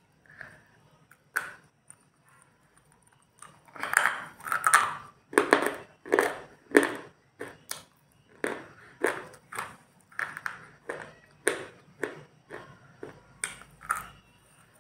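Close-up crunching of a hard, brittle white stick being bitten and chewed. A couple of small clicks come first, then from about four seconds in a steady run of sharp crunches, roughly two a second.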